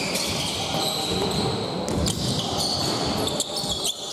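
Basketball game in play: the ball bouncing on the court, with short knocks and higher squeaky tones of court noise.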